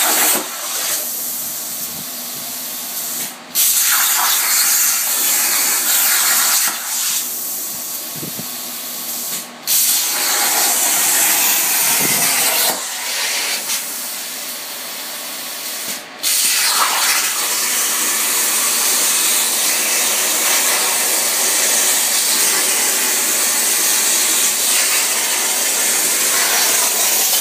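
CNC plasma torch cutting 3/16-inch steel with a loud, steady hiss. Three times it falls to a quieter hiss for a few seconds and cuts out briefly, then the loud hiss comes straight back.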